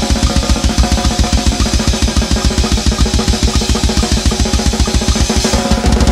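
Death-metal drum solo on a Pearl drum kit: a fast, even run of bass drum strokes, with snare and cymbals over it. Near the end the pattern changes and the cymbals grow brighter.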